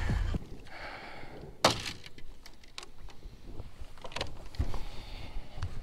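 Knocks and clicks of fishing gear being handled in a small boat, with one sharp knock about a second and a half in and a few lighter clicks after it.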